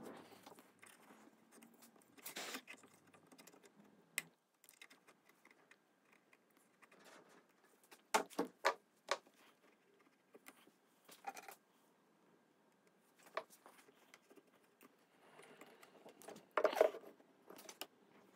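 Light knocks and clicks of hands working on a veneered wooden tabletop: a cloth rubbed over the surface and a small metal hand plane handled on the wood. A quick run of knocks comes about eight seconds in, and a louder clatter comes near the end.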